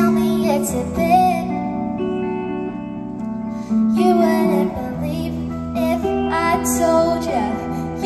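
Live song: a girl singing into a microphone over guitar accompaniment. Her voice comes in phrases with vibrato over sustained guitar chords.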